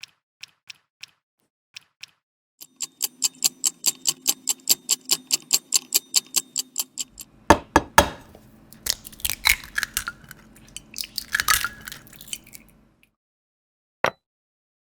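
Small kitchen utensils clinking against tiny dishes: a few separate clinks, then a fast, even run of about five clinks a second, then louder, irregular clinks and clatter that stop shortly before a last single click.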